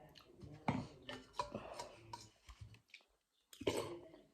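Eating noodle soup: sharp clicks of cutlery against a bowl mixed with chewing, and a louder mouth burst near the end.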